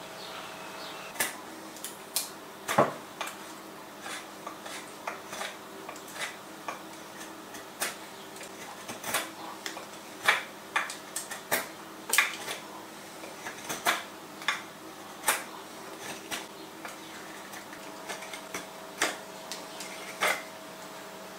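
Nessmuk carving knife cutting into a willow spoon blank: irregular crisp snicks as the blade shaves and chips the wood, roughly one or two a second. A faint steady hum lies underneath.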